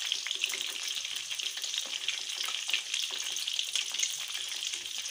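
Stuffed bitter gourds shallow-frying in oil in a steel karahi on low heat: a steady sizzling hiss with many small crackles of oil.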